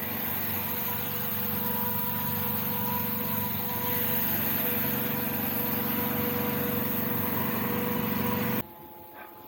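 A motor running steadily with a constant hum, cutting off suddenly near the end.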